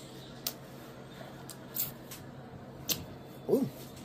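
Mouth sounds of someone chewing a mouthful of pasta: a few sharp, wet clicks and smacks spread about a second apart, then a short hummed 'mm' about three and a half seconds in, the loudest sound.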